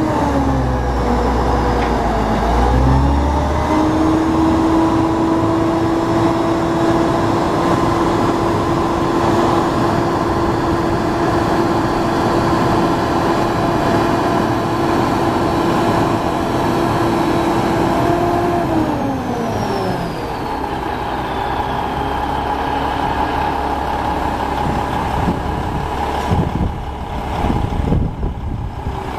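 Cummins N14 six-cylinder diesel of a crane truck running at raised speed to drive the crane hydraulics: its pitch dips briefly and comes back up in the first few seconds, holds steady, then falls to a lower idle about two-thirds of the way through.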